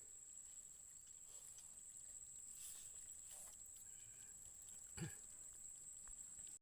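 Near silence, with a faint steady high-pitched whine and one short soft knock about five seconds in.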